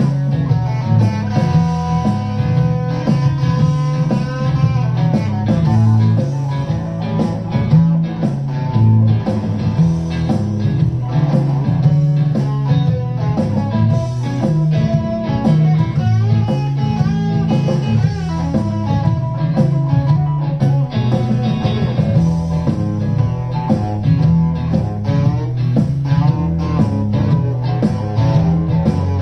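Solid-body electric guitar played through an amplifier, improvised riffs and lead lines with some held notes.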